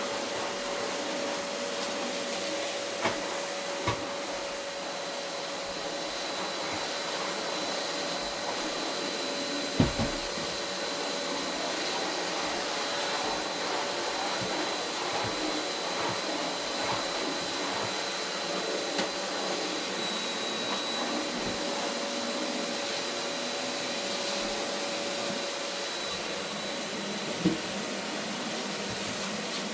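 Vacuum cleaner running steadily, a steady whine over the rush of air, with a few short knocks, the loudest about ten seconds in.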